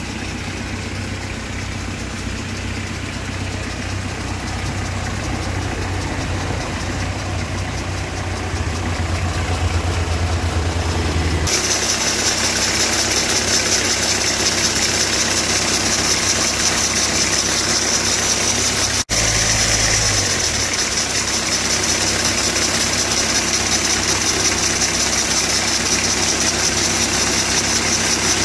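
Citroën Berlingo 2.0 HDi diesel engine idling steadily, with noise from a worn auxiliary (alternator) belt tensioner bearing that needs replacing. About twelve seconds in, a steady high-pitched whine comes in strongly and holds, with a brief break a few seconds later.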